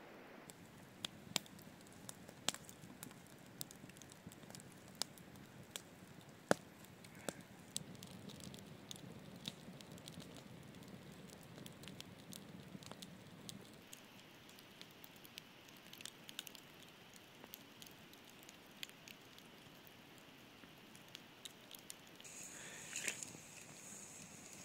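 Campfire burning quietly with sporadic sharp crackles and pops of the wood, a few louder than the rest.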